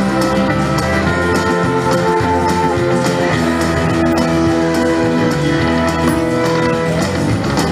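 Slot machine game music playing steadily, with held notes over a low, even beat.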